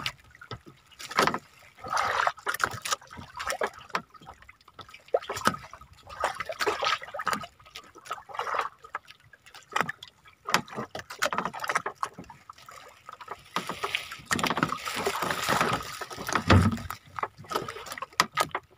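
Irregular splashing and sloshing of sea water as a wet kitang longline is hauled by hand into a small fishing boat.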